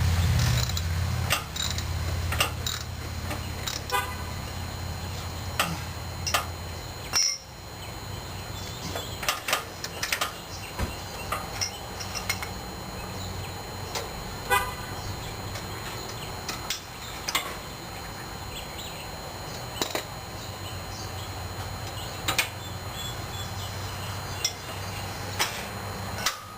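Irregular metal clinks and knocks of hand tools and steel parts being worked, every second or so, some ringing briefly with a clear pitch. A steady low hum sits underneath and drops away about a quarter of the way through.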